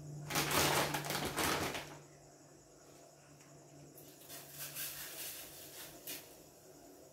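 Metal spoon scraping and clinking inside a stainless steel saucepan as food is stirred. A loud rapid rattle starts just after the beginning and lasts about a second and a half, followed by quieter stirring about four seconds in.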